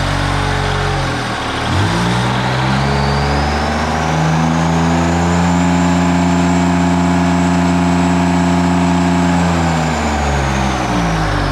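Kubota G6200 diesel mower engine with a bolt-on K03 turbo, revved up about two seconds in, held high for several seconds, then let back down near the end. A high turbo whistle climbs as the turbo spools up, holds, and falls away as the engine drops back.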